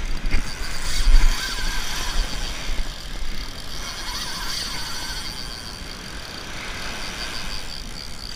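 Spinning reel working during a shark fight on heavy surf tackle: a steady, fast, fine clicking whir from the reel's gears and drag.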